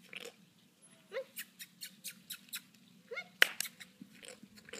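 Horse's lips and mouth smacking and flapping in an irregular run of wet clicks and pops, the mouth noise it makes on command that sounds like farting. Two short squeaky rising notes come in the middle, and one sharp loud pop about three and a half seconds in.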